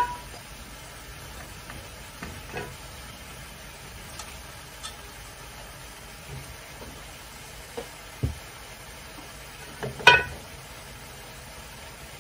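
Sliced vegetables dropping by hand from a stainless-steel bowl into a steel pot of simmering broth, with a few short clinks and knocks of metal on metal, the loudest about ten seconds in, over a steady low hiss.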